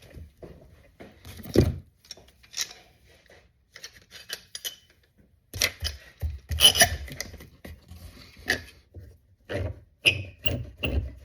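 Small wood clamps being handled and tightened on a glued propeller: irregular clicks, knocks and clatter, with a sharp knock about a second and a half in and a busier stretch of clattering midway.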